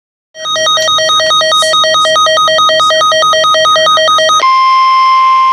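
Weather alert radio alarm for a special marine warning: an electronic tone switching rapidly back and forth between two pitches for about four seconds, then changing abruptly to a steady single tone near 1 kHz, the weather radio warning alarm tone.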